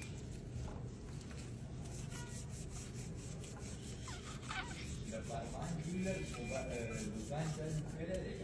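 Quick, even rubbing strokes, several a second.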